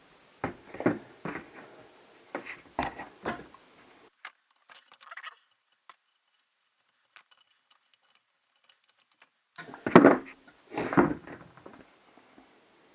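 Clicks and knocks of a roller-ski wheel and its axle hardware being handled as the wheel is refitted to the Jenex V2 roller ski. A run of short knocks comes first, then scattered faint ticks, then two louder rattles about ten seconds in.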